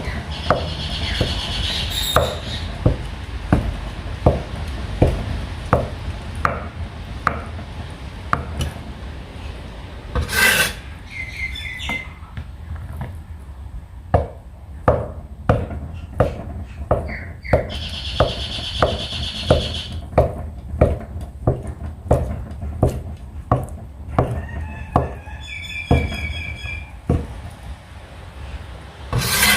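A kitchen knife chopping on a wooden cutting board in a steady rhythm of about two strokes a second, preparing ingredients. Birds chirp briefly several times in the background.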